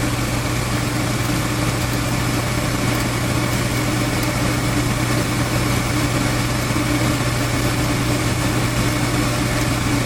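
Goodman gas furnace running steadily with its in-shot burners firing: an even hum with a low drone, over the rushing noise of the burner flames and motors.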